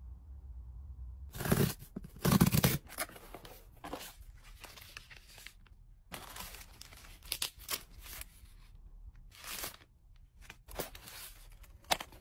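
Cosmetic packaging being unwrapped and handled: tearing and crinkling of plastic wrap, foil sachets and paperboard in irregular bursts, loudest in two tearing strokes about one and a half and two and a half seconds in.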